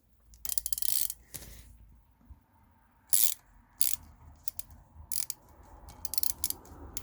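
A 1/4-inch ratchet clicking as it turns a T9 Torx bit driven into a drilled-out broken exhaust manifold stud, working the stud out of the cylinder head. It gives a quick run of clicks near the start, then single clicks at uneven intervals.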